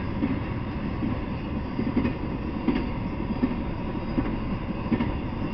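Intermodal freight train of semi-trailers on flatcars rolling past at steady speed: a continuous rumble of steel wheels on the rails, with irregular knocks as the wheels cross rail joints.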